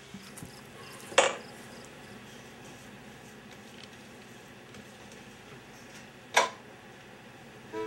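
Two sharp knocks on a wooden kitchen board, about five seconds apart, while biscuit dough is worked by hand on a floured pastry cloth; only a faint steady background between them.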